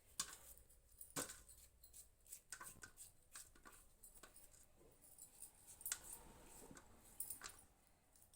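A knife slicing potato into thin pieces: quiet, irregular sharp cutting clicks, several seconds apart.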